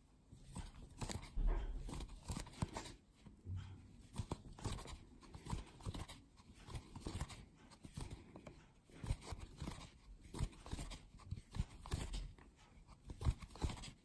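Faint rustling and soft clicks of a metal crochet hook pulling cotton yarn through stitches, repeating in a steady rhythm as single crochet stitches are worked one after another.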